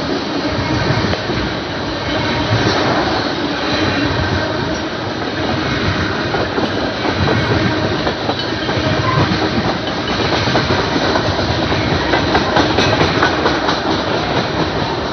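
Tank cars of a BNSF freight train rolling past close by: a steady, loud rumble of steel wheels on rail, with clacking as the wheels cross rail joints, most frequent in the second half.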